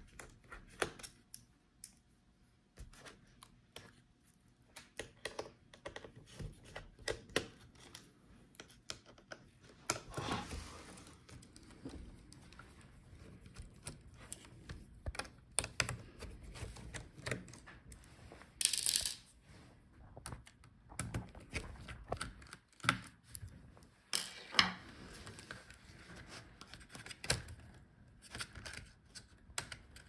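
Small precision screwdriver backing screws out of a laptop motherboard and chassis: a string of light, irregular clicks and taps of the bit and tiny screws on metal and plastic, with a few short, louder scrapes.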